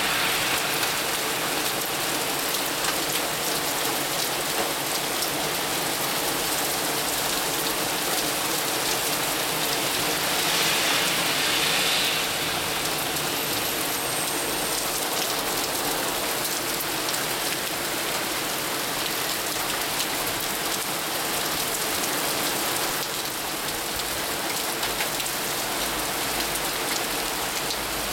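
Hail and heavy rain pelting the pavement and parked cars in a dense, steady hiss of impacts, swelling briefly about ten seconds in.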